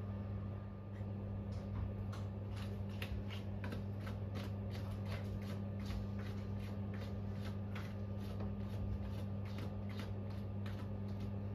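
Pet drying box fan running with a steady low hum while it dries two bathed cats inside, with light irregular clicks over it, several a second.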